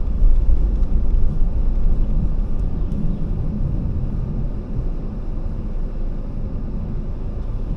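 Car driving: steady low engine and road rumble inside the cabin, easing off a little about halfway through.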